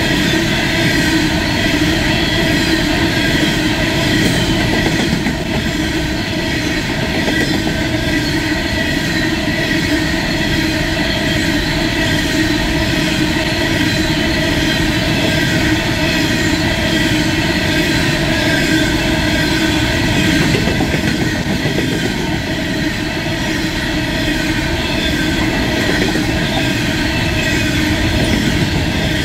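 Empty coal wagons of an Aurizon push-pull coal train rolling past, their wheels running on the rails in a continuous, steady noise with several steady high ringing tones over it.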